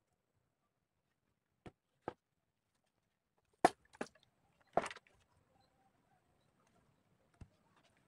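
Six or so separate sharp knocks and clacks with quiet in between, the loudest two about halfway through. No engine is running.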